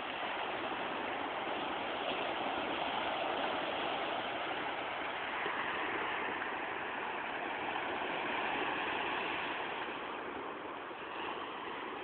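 Ocean surf washing onto a beach: a steady rush of breaking waves that swells a little through the middle and eases slightly near the end.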